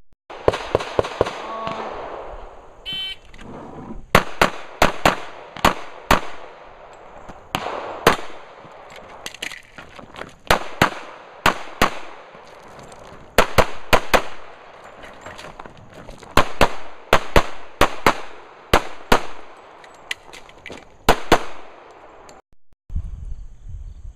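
Semi-automatic pistol fired in rapid strings at a course of targets, mostly quick pairs of shots a fraction of a second apart, each crack ringing out briefly, several dozen shots in all.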